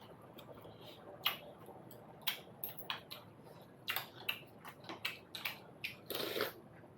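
Close-up chewing and wet mouth smacking while eating momos (steamed dumplings), with irregular clicks and a longer, louder smack about six seconds in.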